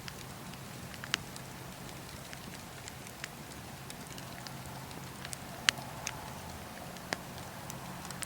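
Wood fire burning: a steady hiss with sharp crackling pops every second or so, the loudest a little past halfway.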